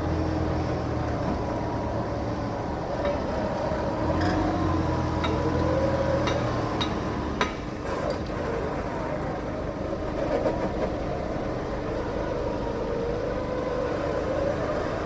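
A four-wheel-drive's engine running, its pitch rising and falling as it is revved, with a few sharp clicks or knocks in the middle.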